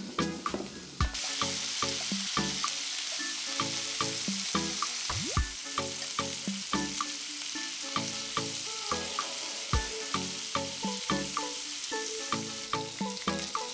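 Thin-sliced beef brisket sizzling in a hot frying pan. The sizzle starts about a second in and runs on steadily under background music with a regular beat.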